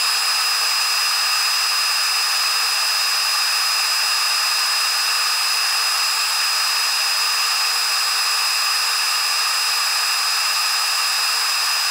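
CO2 laser cutter running while it cuts acrylic sheet, played back sped up: a steady high-pitched whir with several steady whining tones and no low rumble.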